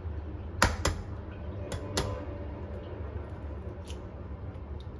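Half-boiled egg tapped against the rim of a bowl to crack its shell: four sharp taps in two close pairs in the first two seconds, then a few faint ticks as the shell is pulled apart.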